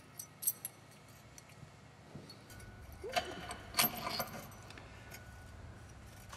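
Small steel hardware clinking as a bolt, washers and lockout plates are handled and fitted through a rear toe link mount: a few light clicks, then a cluster of louder clinks about three to four seconds in.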